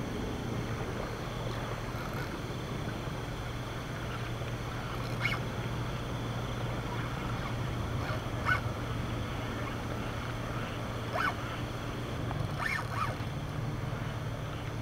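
A steady low machine hum with a light hiss, and a few faint short chirps over it.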